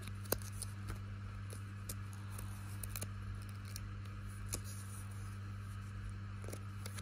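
Scattered small clicks and rustles of fingers handling a small plush toy and its paper tag, the sharpest about a third of a second in, over a steady low hum.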